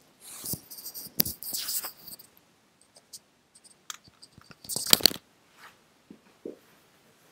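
Rustling and rubbing handling noise on a wired earbud microphone as it is touched and moved. It comes in two bursts, one over the first two seconds and a short one about five seconds in, with a few sharp clicks in between.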